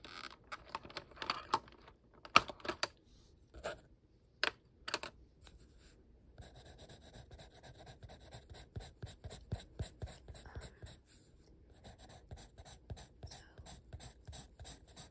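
Coloured pencil shading on sketchbook paper, starting about six seconds in: quick, even scratching strokes. Before it come a few sharp separate taps and clicks.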